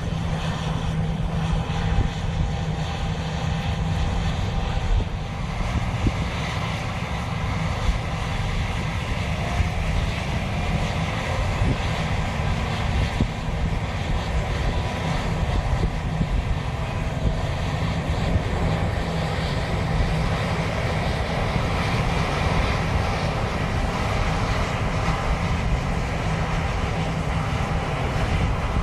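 John Deere combine running steadily, a low engine drone with a constant hum and no let-up.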